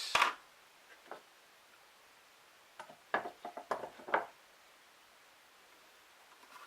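Tools and wooden parts being handled in a toolbox: a sharp click at the start, a light knock about a second in, then a quick run of clicks and knocks around three to four seconds in.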